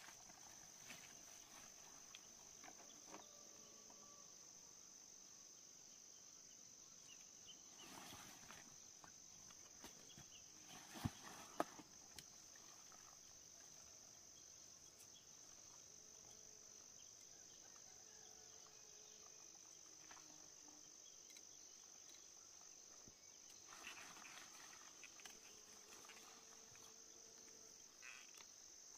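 Faint, steady high-pitched insect chirring, with a few soft rustles and taps now and then.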